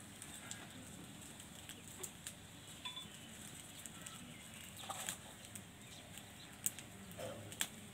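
Quiet outdoor ambience with scattered faint sharp clicks and crackles, such as a wood homa fire burning in its pit makes, and a brief chirp about three seconds in.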